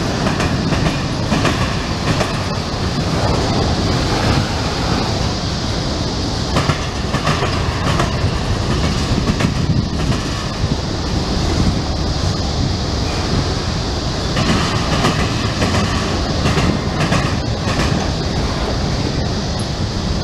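Freight cars of a long mixed freight train rolling past: a steady rumble of steel wheels on rail, with repeated clacking as the wheel sets pass over the rail joints.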